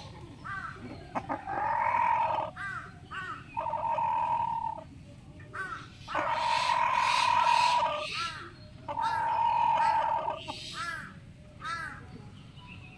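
Rooster crowing four times, each crow ending in a long held note, with short repeated calls from other birds between the crows.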